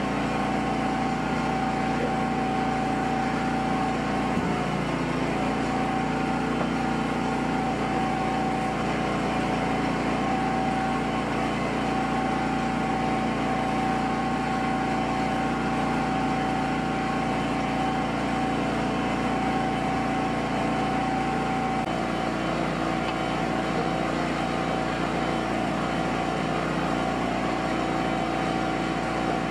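A steady mechanical drone with a constant whine over it, running without a break; the tone shifts slightly about 22 seconds in.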